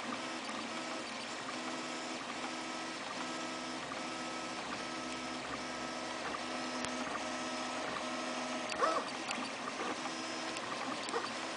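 3D printer running a print: its stepper motors hum in steady tones that stop, start and switch pitch in short runs as the print head moves, with one brief louder sweep about nine seconds in.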